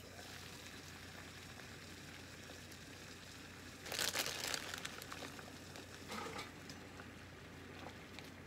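Plastic noodle bag crinkling as hands reach in and pull out fresh ramen noodles, loudest about four seconds in with a smaller rustle about two seconds later, over a faint steady hiss.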